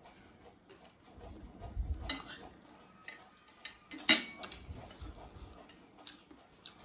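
Metal forks and spoons clinking and scraping on glass plates during eating, with scattered light clicks and one loud ringing clink about four seconds in.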